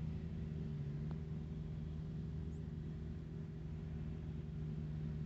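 Steady low machine hum, one pitch held throughout, with a single faint click about a second in.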